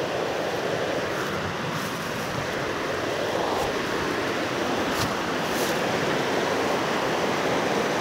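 Fast-flowing river rushing over rocks in shallow rapids, a steady rush of water.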